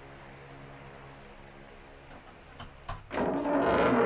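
A steady low electrical hum. About three seconds in, a few clicks and then loud rustling as a sneaker is handled against a clip-on microphone.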